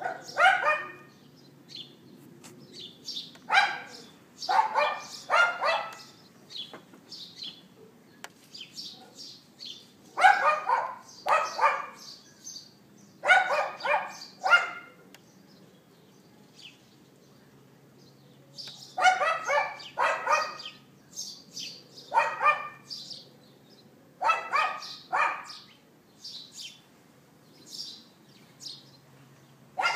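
Dog yapping: short, sharp barks in bursts of two or three, repeated every few seconds. Small birds chirp faintly in the gaps.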